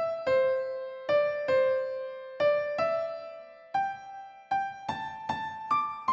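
Background music: a slow, unaccompanied melody played one note at a time on a keyboard with a piano-like tone, each note struck and then fading, about two notes a second.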